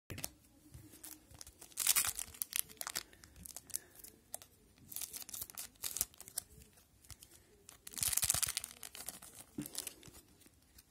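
Foil wrapper of a 2001-02 Pacific Adrenaline hockey card pack being torn open and crinkled, with loud rustling tears about two seconds in and again around eight seconds in, and lighter crackles and clicks of handled cards and wrapper between them.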